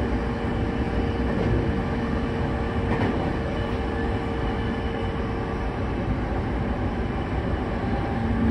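Running noise heard inside a JR E231-series electric train's motor car travelling between stations: a steady rumble of wheels on rail with a level motor hum that fades out about five seconds in.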